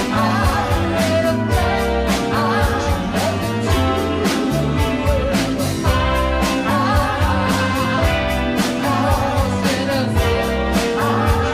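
Rock-style music with a singer over a steady drum beat.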